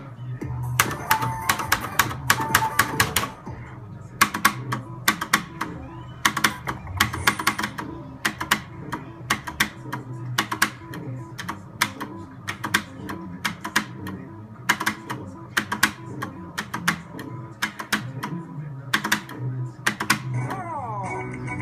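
Slot machine's reels stopping one after another, each stop a sharp click, in quick runs of about five every second or two, over the machine's looping game music. A short rising sweep sounds near the end.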